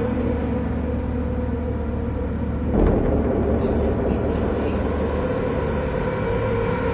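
Steady low mechanical rumble, with a sudden knock a little under three seconds in.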